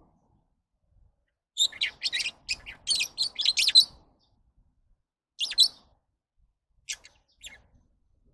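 Lovebirds chirping: a rapid run of shrill, high chirps for about two seconds, then a short burst and a few single chirps with pauses between.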